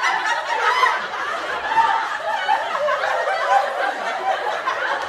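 Crowd of many people laughing together, a steady mix of chuckles and snickers with no pauses.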